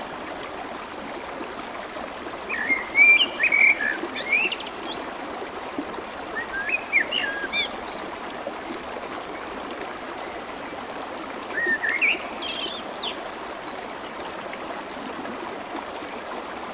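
Steady babbling of fast-flowing clear water, with a songbird singing short chirping phrases three times, about three, seven and twelve seconds in.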